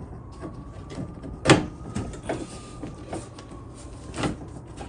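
Knocks and clunks of a car door's side glass being slid and handled in its door frame, the loudest about a second and a half in. A faint thin squeak runs through the first few seconds.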